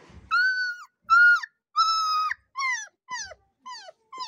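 Mixed-breed puppy whining: a run of about seven high, pitched cries, the first three longer and level, the rest shorter and falling in pitch.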